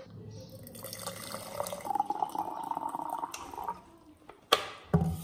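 Water poured from a metal kettle into a glass jar, filling it. The pouring stops about four seconds in, followed by two short knocks.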